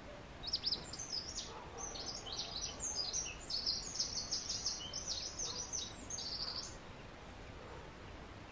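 Songbird singing outdoors: a fast, jumbled run of high chirps and short trills lasting about six seconds, stopping well before the end.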